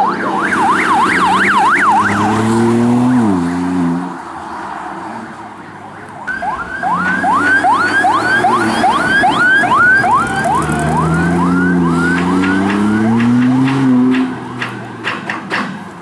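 Electronic siren: a fast up-and-down wail for the first two seconds, then after a short lull a quick rising yelp repeated about three times a second for several seconds. A vehicle engine revs up and down between the siren bursts, and a few sharp clicks come near the end.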